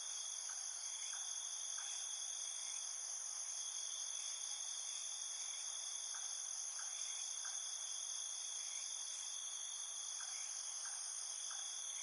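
Steady, high-pitched chorus of trilling insects, with faint short chirps coming in small runs about half a second apart.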